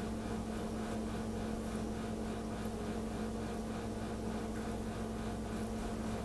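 Steady low electrical hum with a faint even hiss: background room and appliance noise.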